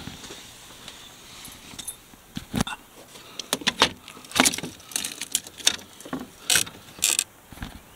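Irregular run of sharp clicks, knocks and scrapes, as from handling and climbing, starting about two and a half seconds in and busiest in the middle, as someone makes their way up onto a truck camper's roof.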